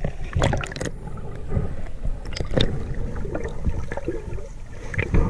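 River water splashing and gurgling around a swimmer's camera as it moves at the surface and under water, with irregular knocks and splashes.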